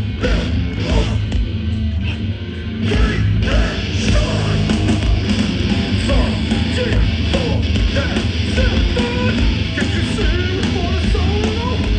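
Hardcore band playing live at full volume: heavy distorted electric guitars, bass and drums, with the kick drum thumping steadily underneath.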